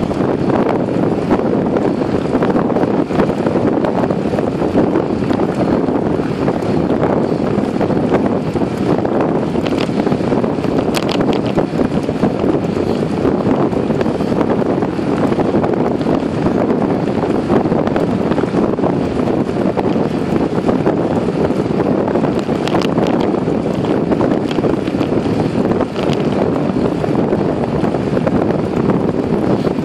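Steady wind buffeting a handlebar-mounted phone's microphone on a moving bicycle, a continuous loud rushing rumble.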